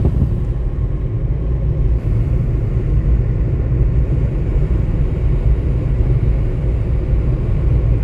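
Steady low rumble of road and engine noise from a car being driven slowly.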